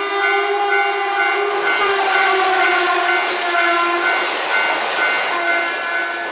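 A train horn holds one long chord over the noise of the running train, dropping slightly in pitch about four seconds in.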